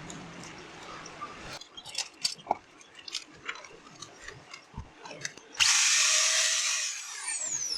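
Bosch GWS 600 angle grinder, with its bearing newly replaced, is switched on for about two seconds. It runs with a loud steady whir, then winds down with a falling whine. Before it starts there are a series of clicks and knocks from the tool being handled.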